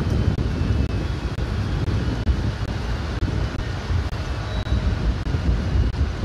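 Wind buffeting the microphone, a heavy fluttering rumble over a faint, steady background noise.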